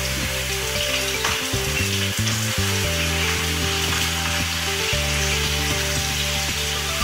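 Diced lamb sizzling as it sears in hot oil in a wok, browned a little at a time to seal the meat. Background music with sustained low notes plays underneath.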